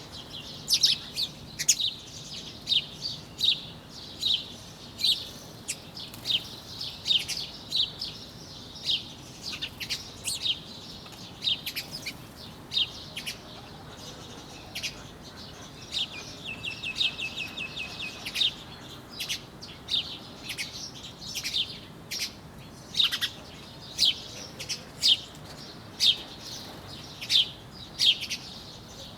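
Birds chirping over and over in short, sharp calls, several a second, with a quick run of evenly spaced notes about halfway through.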